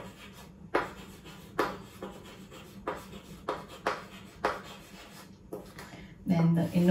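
Chalk writing on a chalkboard: a string of short, scratchy strokes, about one or two a second, as a word is written out letter by letter.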